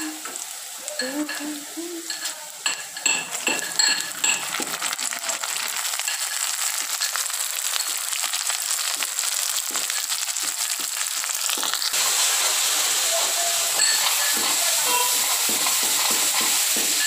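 Onions, green chillies and chicken pieces sizzle in hot oil in a metal kadai. Metal clinks and scrapes of stirring sound through the first few seconds, and the sizzle grows louder, with a step up about twelve seconds in.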